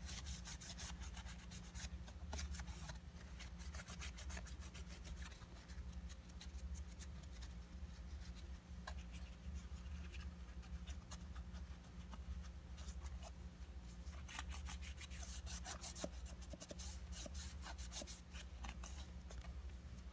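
Alcohol wipe rubbed in short, faint wiping strokes over the hard plastic of a car armrest lid, cleaning off old glue residue and finger oils before the leather is glued on. The strokes come in irregular runs, busiest near the start and again in the last few seconds, over a low steady hum.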